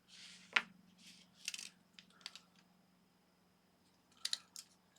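Small plastic phone parts being handled: a few short light clicks and taps with brief scraping rustles, the sharpest click about half a second in, over a faint steady hum.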